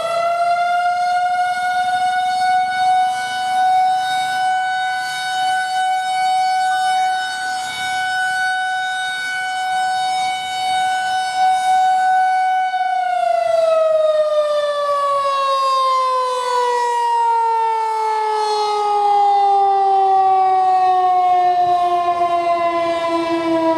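Federal Signal 2001-130 outdoor warning siren sounding its noon signal, its rotating horn holding one steady high tone. About halfway through it winds down, the pitch falling steadily and slowly.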